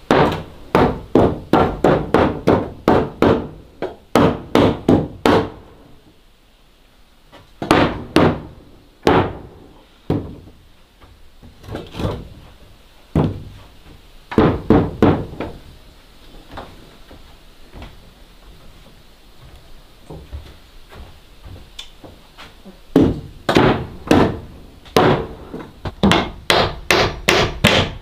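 A claw hammer driving nails into wooden planks, in runs of quick blows about three a second with pauses between the runs.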